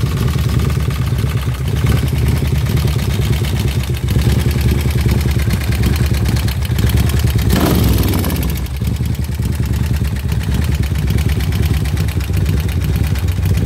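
Custom Harley-Davidson bagger's Jims 131 cubic-inch (2147 cc) V-twin idling steadily through a Road Rage exhaust, with a brief louder burst about eight seconds in.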